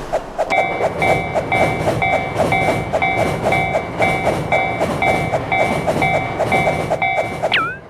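Japanese railroad crossing warning bells ringing 'kan-kan', about two strikes a second, over a low rumble. A second, higher-pitched bell joins in about half a second in, and a quick falling glide sounds near the end.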